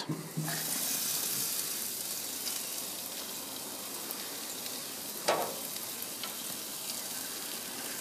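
Beef burger patties and potato wedges sizzling on a hot Weber grill, a steady hiss that comes up as the lid opens, with one brief knock about five seconds in.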